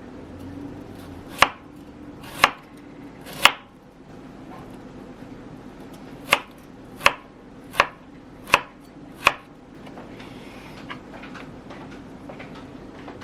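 Kitchen knife chopping on a cutting board: three single cuts about a second apart, a pause, then five more cuts at a steady pace.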